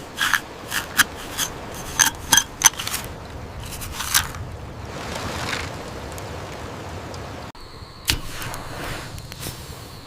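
Campfire crackling, with sharp irregular pops over a steady hiss; the pops come thickest in the first few seconds.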